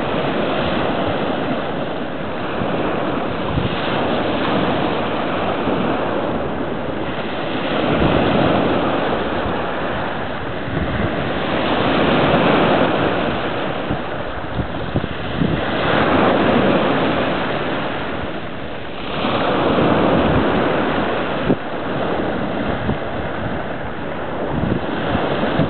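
Small sea waves breaking and washing up the shore, the rush of surf swelling and easing about every four seconds.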